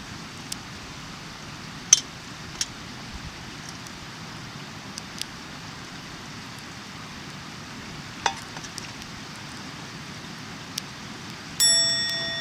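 Camp cookware and utensils: a few sharp clicks and taps over a steady hiss, then near the end a metal object struck once, ringing with a clear tone that slowly dies away.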